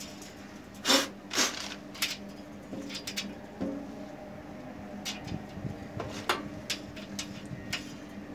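Brass MICC cable gland parts clicking and clinking against each other and the copper cable sheath as they are handled, about ten scattered clicks with the two loudest about a second in. A steady low hum runs underneath.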